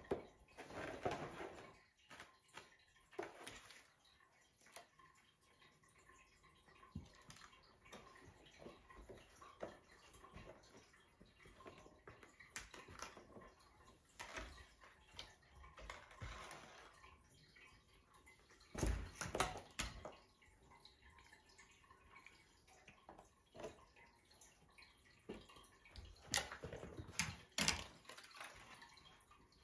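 Siberian kitten playing on its own: faint, scattered taps, knocks and rustles, with louder clusters about a second in, around nineteen seconds in and near the end.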